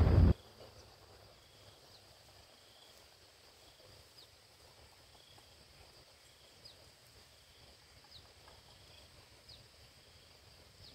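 Faint outdoor ambience: a steady high insect drone with a few short, falling bird chirps scattered through it. A brief loud rush of noise cuts off at the very start.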